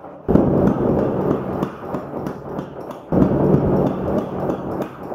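Blacksmith-shop noise: a loud rumbling roar full of crackle, which comes in suddenly twice, over a steady low machine hum.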